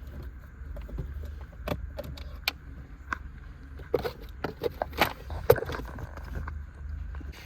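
Irregular metallic clicks and clinks of tools and parts being handled during work on a car's horn, most of them about four to six seconds in, over a steady low hum.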